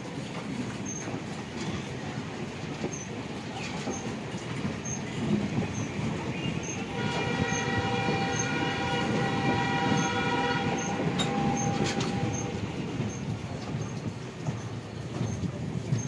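Passenger train coaches rushing past on the next track, a steady rumble with wheel clatter. A train horn sounds for about five seconds from about seven seconds in.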